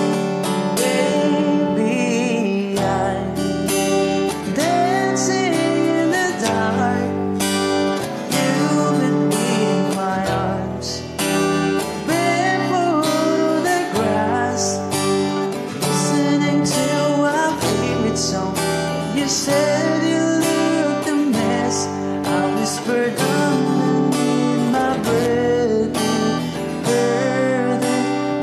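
A guitar strummed in chords with a man singing along, a slow ballad.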